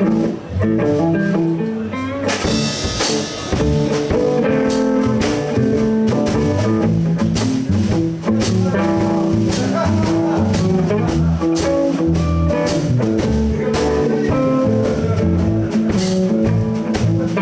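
Live blues band playing an instrumental shuffle intro: guitar, bass guitar and a drum kit played with brushes, in a steady beat.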